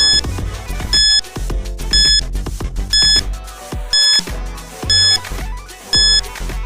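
Background music with a short, high electronic beep repeating once a second, seven times: the tick of a countdown timer.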